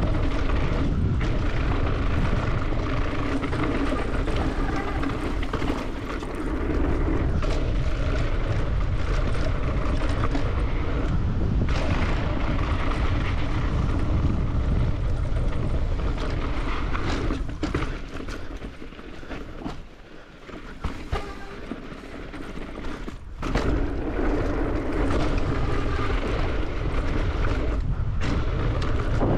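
Wind rushing over the microphone with tyre roar and rattling from an Evil Insurgent mountain bike descending a dirt downhill trail at speed. The noise eases off for a few seconds about two-thirds of the way in, then picks up again.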